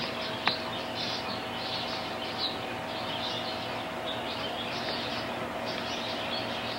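Birds chirping over and over in short, irregular calls, over a steady hiss and a faint steady hum, with a single click about half a second in.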